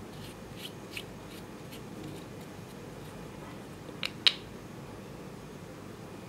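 Glass nail polish bottle handled and its screw cap twisted open: a few light clicks, then two sharp clicks close together about four seconds in.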